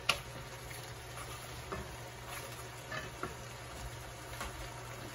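A stir-fry of shark fin squash and glass noodles sizzling and bubbling in a pan, with a few light clicks of chopsticks and a wooden spatula against the pan; the sharpest click comes just after the start.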